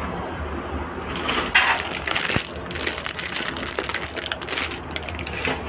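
Irregular crackling and crunching noises start about a second in and run until near the end, over a steady low hum.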